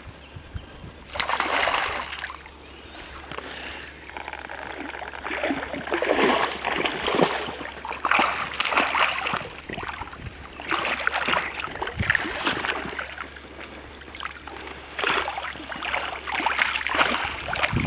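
A hooked pike thrashing and splashing at the water's surface in irregular bursts as it is played on the line, with a head-shaking leap partway through.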